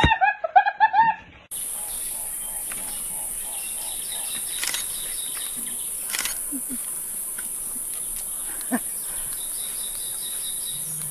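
Forest ambience: a steady high-pitched insect drone with faint repeated chirping bird calls and a few small snaps. It is preceded by a quick run of short, high rising cries that cuts off sharply about a second and a half in.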